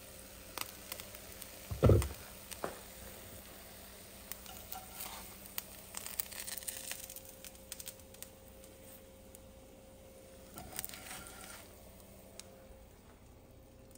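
Eggs frying in oil in a nonstick frying pan with a faint sizzle, and clicks and scrapes of a slotted spatula against the pan as the eggs are lifted out. A loud thump about two seconds in.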